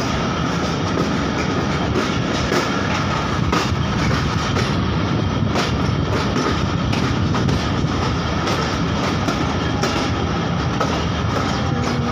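Passenger train running along the track, heard from inside a coach: a steady rumble with the wheels clicking at irregular intervals over rail joints.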